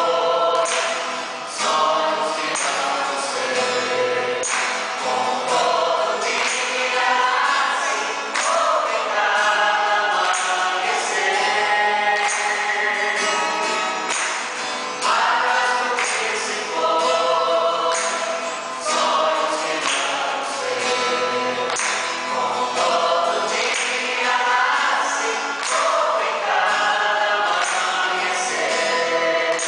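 Mixed church choir singing a hymn together to acoustic guitar accompaniment, the singers clapping in time.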